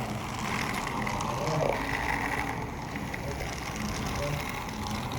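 Battery-powered toy train's small electric motor and gears whirring steadily as it runs along the track.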